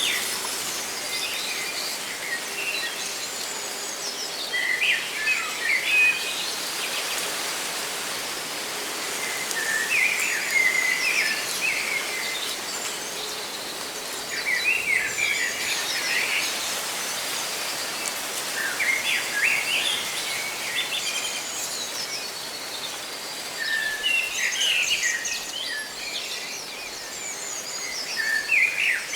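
Birds chirping in short clusters of calls about every five seconds, over a steady hiss of leaves rustling in the wind.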